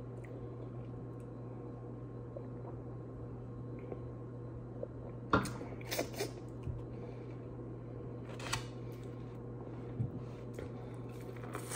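Steady low hum of room tone with a few brief clicks and rustles from handling things at the table, a cluster about five to six seconds in and single ones near eight and ten seconds.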